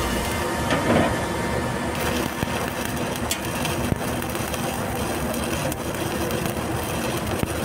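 Stick-welding arc crackling steadily as the electrode burns along a round pipe, with a brief louder surge about a second in.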